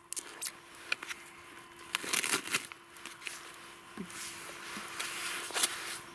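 Plastic cling film crinkling and tearing as it is peeled off a foam meat tray, in two main spells of crackly rustling.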